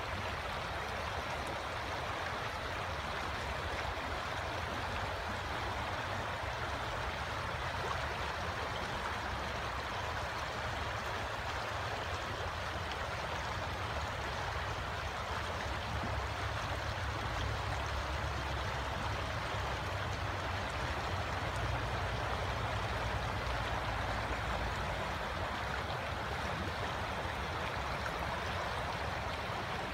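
River water flowing and rippling steadily over a shallow bed, an even rushing hiss with a low rumble underneath.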